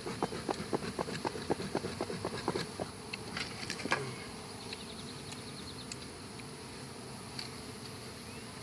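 Honey bees buzzing around an opened hive, with a run of quick light knocks in the first half that die away, leaving a steady buzz.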